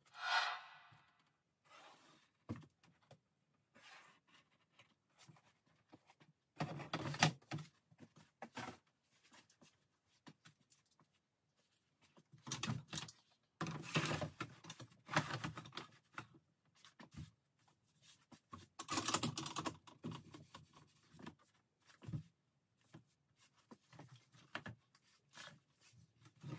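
Fibreboard panels and a saw guide rail being handled and set in place on a workbench: irregular knocks, taps and longer scraping slides, with no saw running.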